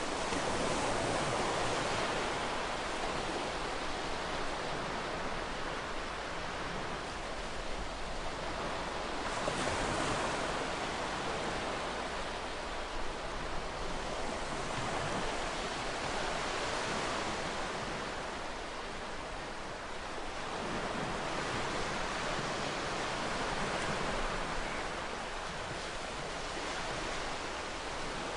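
Sea waves breaking and washing onto a beach: a continuous rushing surf that swells and eases every few seconds.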